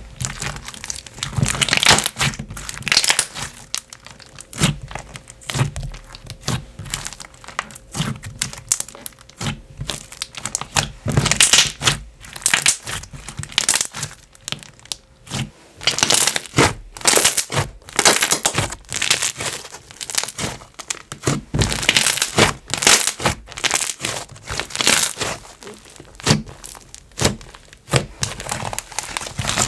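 Bluebubble Cream, a thick and glossy slime with marshmallow beads, being squished and stretched by hand, giving a dense, continuous run of crackling bubble pops.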